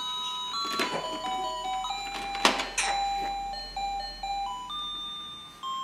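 A baby play gym's electronic toy tune: a simple melody of plain beeping notes stepping up and down, a few notes a second. A few short knocks sound over it, the loudest about two and a half seconds in.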